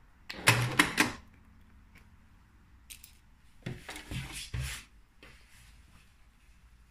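Two short runs of clicking, about a second in and again around four seconds: a sewing machine putting in a few stitches, backstitching the end of a seam.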